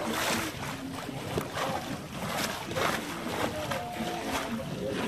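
Water swishing and splashing along a sailboat's hull as it sails, rising in irregular surges about a second apart, with wind noise.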